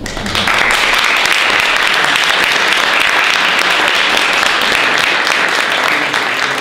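Small audience applauding steadily, a dense patter of hand claps that starts at once and eases slightly near the end.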